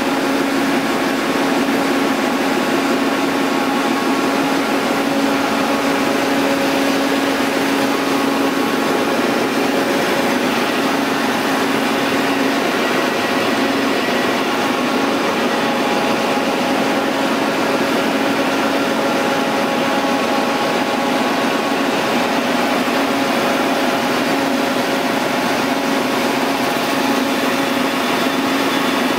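Multitec G5 web offset printing press running, a steady mechanical hum and whir with a few steady tones.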